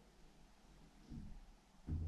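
Dull low thuds coming through the ceiling from the flat above, one about a second in and a stronger one near the end. These are impact noises from a resident jumping and banging upstairs.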